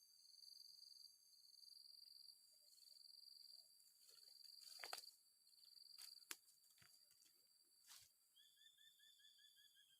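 Faint high insect trilling, pulsing on and off in stretches of about a second. A few sharp clicks come between about five and eight seconds in. Near the end there is a quick run of about eight short chirping notes.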